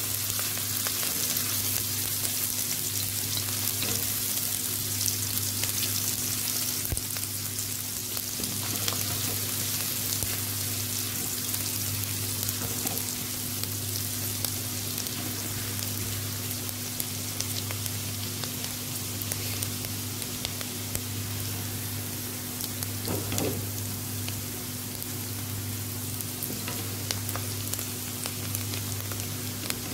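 Chopped onions sizzling steadily in hot oil in a kadhai, with small crackles and a spoon stirring them now and then. This is the early frying stage, with the onions being taken to a light golden colour. A steady low hum runs underneath.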